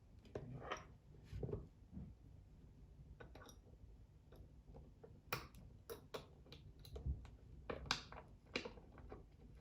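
Faint, irregular small clicks and taps of a hex key turning screws into a chair's armrest mounting, with louder clusters of clicks about five seconds in and again near the end.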